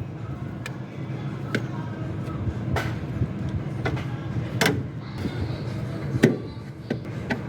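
Steady low mechanical hum with a series of sharp clicks and knocks, the loudest about six seconds in.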